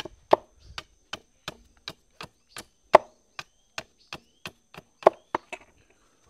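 Machete blade chopping into a wooden handle with quick, even strokes, about three a second, stopping near the end.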